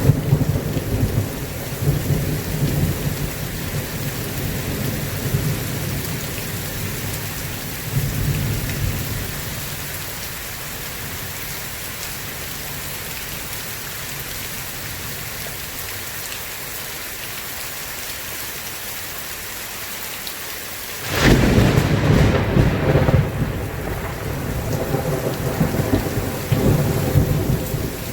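Steady heavy rain with rolling thunder: low rumbles fade out in the first ten seconds, leaving only the rain hiss. About 21 seconds in, a sudden loud thunderclap breaks and rumbles on to the end.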